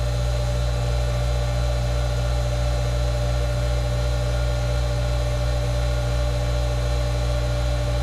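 Electric water booster pump running with a steady hum, building system pressure toward the cut-off point of its pressure switch.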